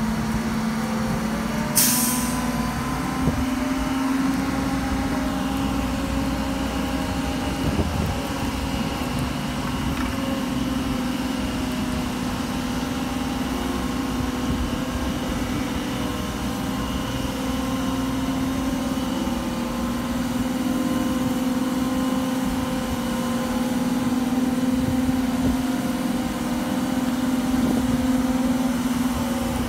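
Mobile truck crane's diesel engine running steadily as it hoists a heavy load, with a short hiss of released air about two seconds in.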